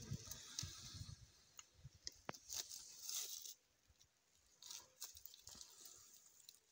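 Faint, scattered crunches and clicks of a Komodo dragon gulping and tearing at a carcass as it swallows it.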